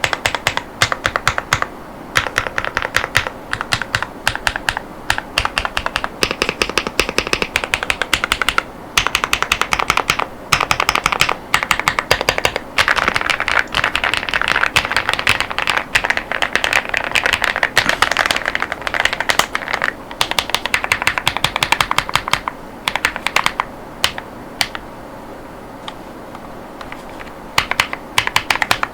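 Typing on an AULA F99 Pro mechanical keyboard with Leobog Star Vector 40 gf linear switches and PBT Cherry-profile keycaps: fast runs of keystrokes with short pauses between words and phrases. The keystrokes thin out to a few scattered presses near the end, then pick up again.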